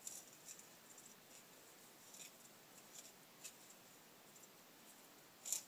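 Knife point scraping and picking at a block of ice, carving a small divot to serve as a bow-drill bearing block: faint, irregular scratches, with a sharper scrape near the end.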